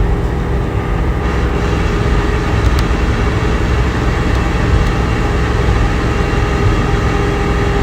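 1969 Mustang's 428 V8 and drivetrain running at steady cruise around 55 mph and 2,500 rpm, heard from inside the cabin, with road rumble and a steady tone running underneath.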